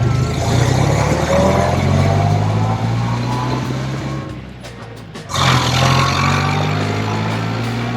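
A 1929 Ford Model A speedster's engine pulling under way, its pitch rising as it speeds up. It eases off and drops in level about four seconds in, then comes back sharply just after five seconds and climbs again.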